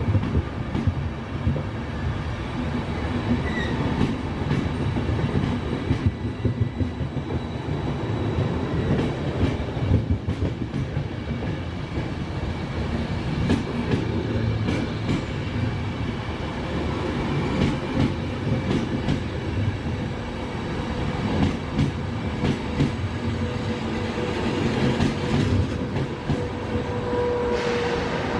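Intercity Notte passenger coaches rolling past on the adjacent track: a steady rumble of steel wheels on rail with repeated clacks over the rail joints. Near the end a steady electric whine joins in as the E402 electric locomotive comes by.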